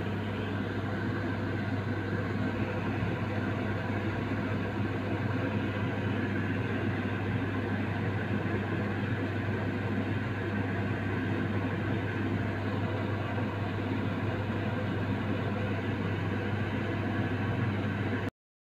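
Steady electric hum of a running motor or fan, a strong low mains-like drone under an even whirring hiss, unchanging throughout; it cuts off suddenly near the end.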